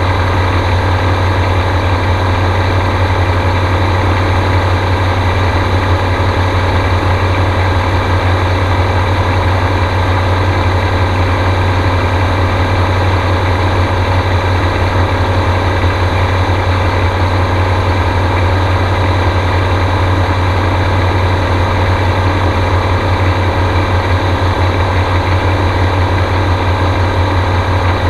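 Gyrocopter's engine and pusher propeller running at a steady pitch: an even, unbroken drone with a strong low hum.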